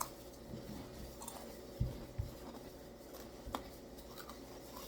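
Quiet handling noises: scattered light clicks and rustles, with two dull thumps close together about two seconds in and a sharper click a little later.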